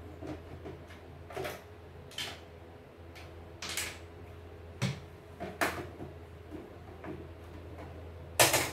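Irregular clicks and knocks of a screwdriver and small parts being handled while working on an embroidery machine, the loudest knock near the end, over a steady low hum.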